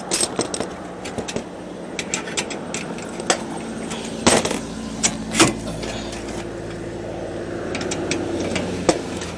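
Scattered sharp clicks and knocks of hand work on hardware, the two loudest about four and five seconds in. A motor vehicle's engine hum rises in the background from about halfway and fades near the end.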